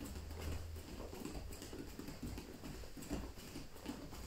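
Bare feet patting quickly and evenly on foam training mats while running in place with butt kicks, heels flicked up to the thighs.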